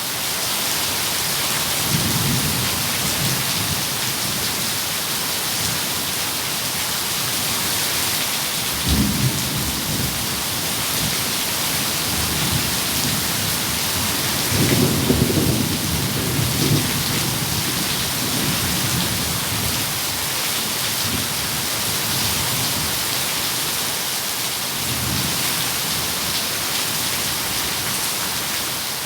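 Steady rain hissing, with low rolls of thunder rumbling through it about four times, the loudest roll about halfway through.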